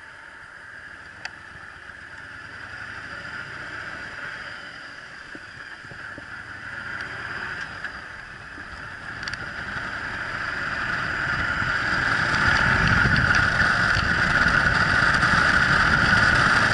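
Yamaha Drag Star 1100 V-twin motorcycle under way, with engine and wind rush picked up at the rider's helmet. The sound builds steadily as the bike gathers speed and is loudest in the last few seconds.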